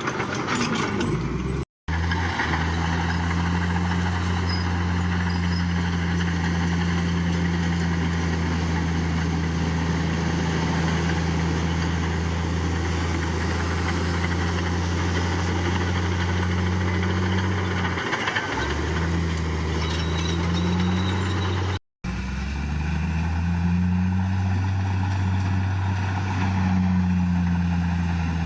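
Heavy diesel engine of earthmoving machinery running steadily, its pitch rising briefly a few times in the second half. The sound cuts out completely for a split second twice.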